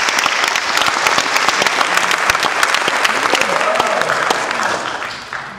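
Congregation clapping: dense applause that fades away over the last second or so, with some voices mixed in.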